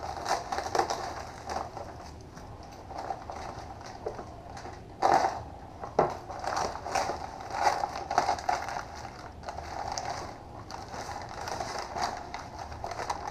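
Plastic bag and newspaper packing crinkling and rustling as they are pulled open by hand, with two sharper crackles about five and six seconds in.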